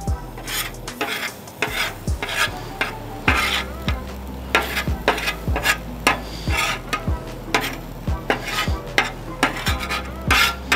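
Metal spatula scraping and pushing scrambled eggs across the steel top of a Blackstone griddle in repeated short strokes, with the eggs sizzling underneath.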